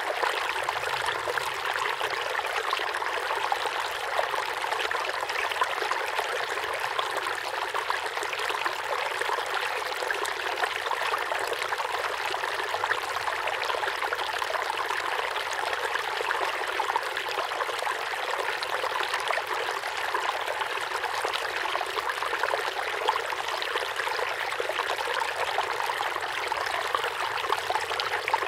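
Steady running water, an even trickling, stream-like noise without pauses.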